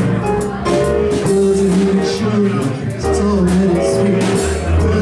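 Live band playing a pop song: keyboard, electric bass and drum kit.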